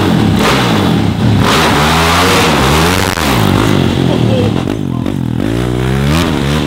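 Yamaha 450cc single-cylinder four-stroke engine in a shifter kart, revving up and down over and over as the kart pulls away and drives off.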